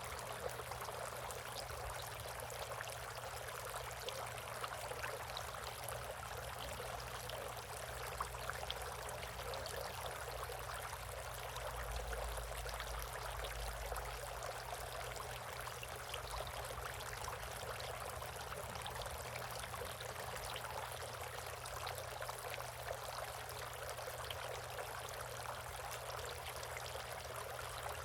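Water running steadily in a bird bath, a continuous trickle and splash with small drip-like ticks through it.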